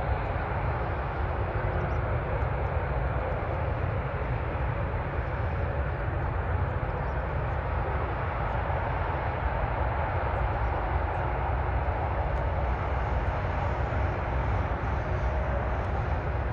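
Jet airliner engines at an airport, a steady even noise with no rise or fall.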